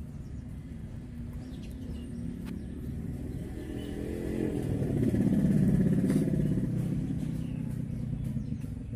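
A motor vehicle engine goes past, growing louder from about four seconds in, loudest around six seconds, then fading.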